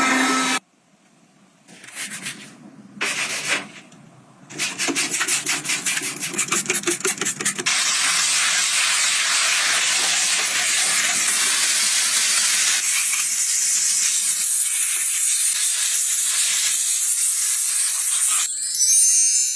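Two short rubbing strokes, then quick rhythmic scrubbing for a few seconds, then a steady hiss lasting about ten seconds, typical of household cleaning.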